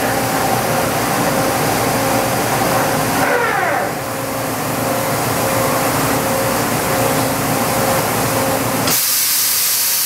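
Toyoda FH60 horizontal machining center running: steady mechanical noise with a pulsing tone, and a whine that rises and falls about three to four seconds in as the rotary table turns the workpiece. Near the end a loud steady hiss starts suddenly.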